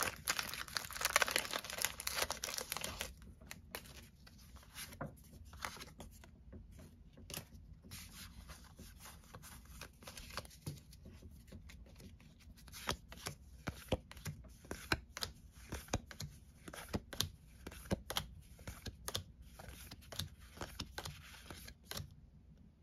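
A Pokémon booster pack's foil wrapper crinkling as the cards are pulled out of it for the first few seconds. After that comes a long run of soft clicks and flicks as the trading cards are slid one behind another.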